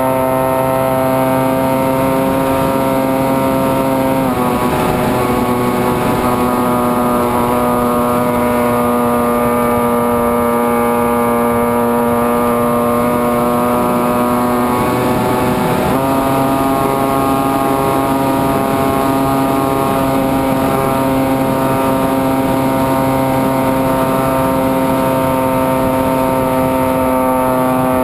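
Electric motor and pusher propeller of a Zephyr II flying wing, heard from its onboard camera, running with a steady whine. The pitch drops about four seconds in, sags slowly, then climbs back up about sixteen seconds in and holds.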